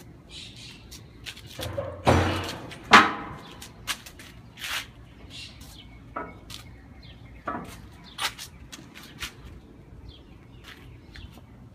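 Birds chirping, with scattered knocks and clanks; the two loudest come about two and three seconds in.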